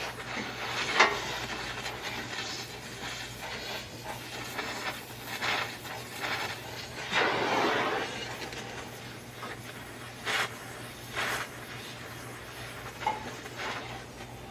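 Oxy-fuel gas welding torch flame hissing while welding a steel car chassis rail, swelling into louder rushes several times, the longest about seven seconds in. A sharp click about a second in.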